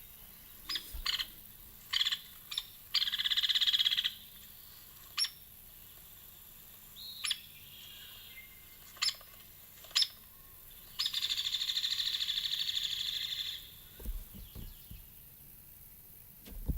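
Hairy woodpecker calling: short, sharp single notes scattered every second or two, and two fast rattling runs of notes. The first rattle comes about three seconds in and lasts about a second; the second, longer one comes about eleven seconds in and lasts about two and a half seconds.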